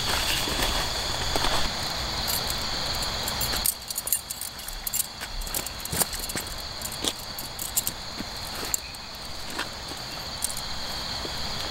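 A steady, high-pitched insect chorus of night insects chirring without a break. Broad rustling fills the first few seconds, and scattered sharp clicks and knocks follow.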